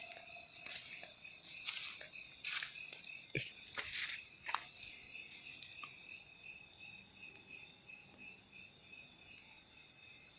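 Night chorus of crickets and other insects, a steady high trilling. Several short crackles come in the first half, then stop.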